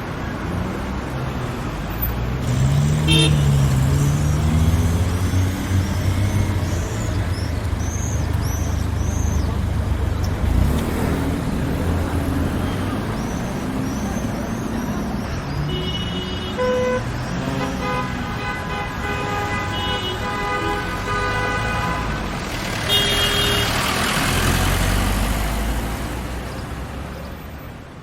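City street traffic: a steady rumble of car engines and tyres, with car horns honking several times in the second half and a passing vehicle's hiss swelling near the end before the sound fades out.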